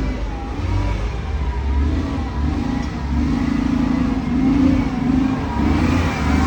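An engine running steadily, with its pitch drifting slightly up and down.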